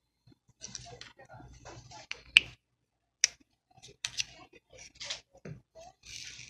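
Scattered clicks and light rustles of plastic lotion tubes and bottles being handled, with a couple of sharper clicks midway and a short hiss near the end.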